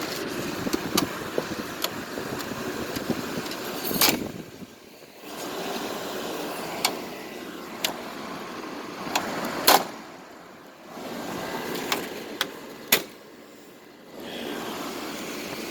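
Sharp plastic clicks and knocks from handling a window air conditioner's front grille and filter, heard over a steady background hum that drops out several times for about a second.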